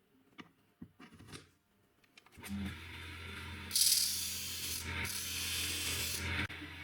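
A few light clicks as a drill bit is set in the sharpening jig, then the grinder's washing-machine motor starts with a steady hum. The bit is ground against the wheel in two passes with a harsh hiss, which stops suddenly while the motor runs on.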